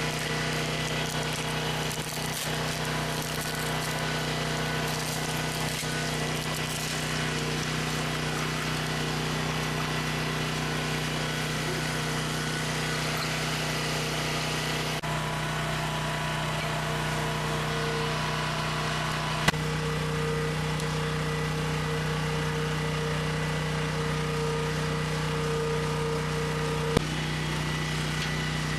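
Small gasoline generator engine running at a steady speed, its tone changing slightly about halfway through. Two brief sharp clicks come in the second half.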